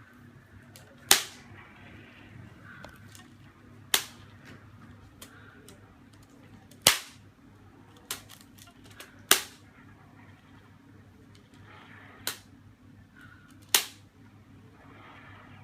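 An elastic band pinging as a kitten pulls and releases it: about seven sharp snaps at irregular gaps of one to three seconds, some much louder than others.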